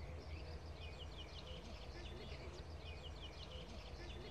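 Small songbirds chirping and singing, with two quick runs of three or four short falling notes, over a low steady outdoor rumble.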